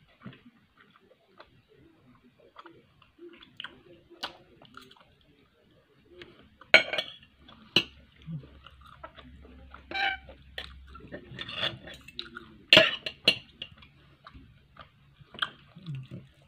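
Steel knife and fork clinking and scraping on a ceramic plate while cutting steak. There are a few sharp clinks, the loudest about seven and thirteen seconds in.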